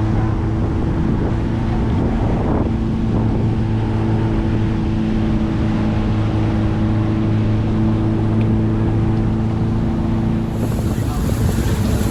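Tour boat's engine running steadily under way, a low steady hum with wind on the microphone and water rushing past. The engine hum drops away near the end.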